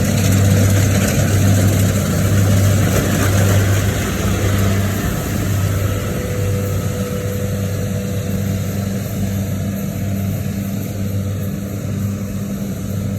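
An engine running steadily, its low hum swelling and fading in a regular pulse and easing slightly in level over the stretch.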